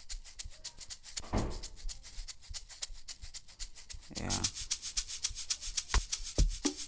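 Sampled shaker loop playing alone from a music-production session: quick, even shaker hits at about eight a second, with two longer swishes. Low kick drum thumps join near the end.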